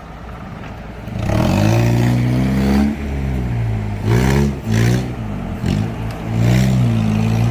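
Off-road 4x4's engine revving up and down in repeated surges, a long rise in pitch followed by several shorter bursts of throttle.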